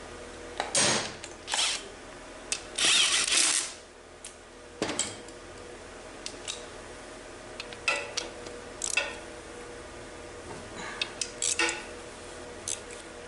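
Metal tools and transmission parts clinking and knocking in irregular bursts, with one longer rasping burst about three seconds in, over a steady low hum.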